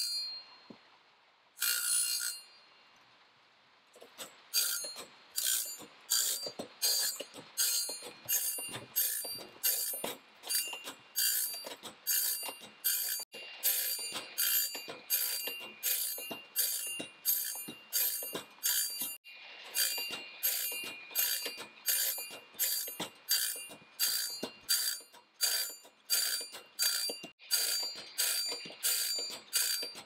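Sawmill bandsaw-blade sharpener grinding the teeth one after another with its CBN wheel: a short grind with a ringing whine about one and a half times a second, as the machine steps the blade along tooth by tooth. One brief grind about two seconds in and a short pause come before the steady run starts about four seconds in.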